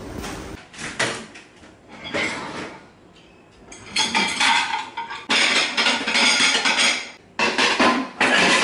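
Pots and pans clattering as a kitchen drawer is rummaged through, in several separate bursts with abrupt starts and stops.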